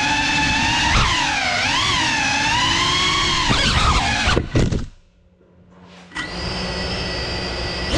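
Brushless motors and propellers of a small FPV cinewhoop drone (GEPRC Cinelog 35) whining, the pitch rising and falling with throttle. About four seconds in there are a few sharp knocks as it strikes the underside of a table, the motors cut out for about a second, then they spin back up to a steady whine.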